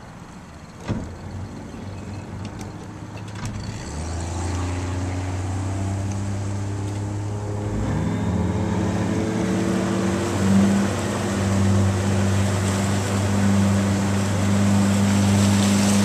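Motorboat engine coming up from idle about four seconds in and running ever louder as the boat gets under way, with water rushing along the hull building toward the end.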